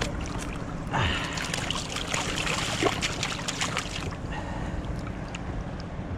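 A hooked sea bass thrashing and splashing at the surface beside the boat. A burst of splashing starts about a second in and lasts around three seconds, over a steady low rumble of sea and wind.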